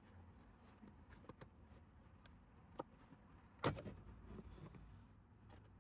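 Faint plastic clicks and rubbing as a car's interior kick panel is pulled away from the door pillar, with one louder click about three and a half seconds in, followed by a brief rustle.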